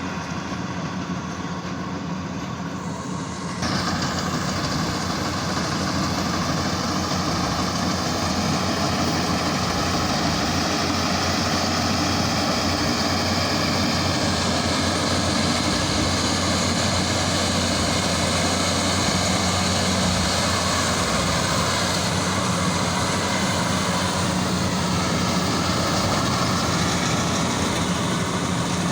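Combine harvester running steadily, a low engine hum under the noise of its machinery, growing louder about three and a half seconds in.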